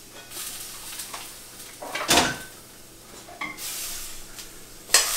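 Cookware and utensils handled at the stove as the splatter guard comes off and tongs are picked up: a loud clatter about two seconds in and a lighter knock a little later. Near the end comes a sharp clank of tongs in the stainless sauté pan, and the sautéed green beans start sizzling again.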